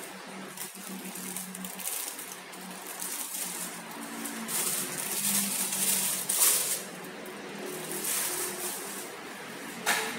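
Plastic wrapping rustling and crinkling as it is handled, loudest about halfway through, with a sharp click near the end.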